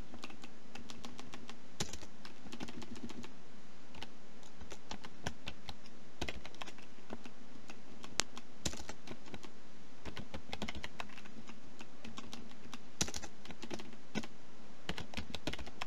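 Typing on a computer keyboard: irregular runs of key clicks, with one louder keystroke about halfway through.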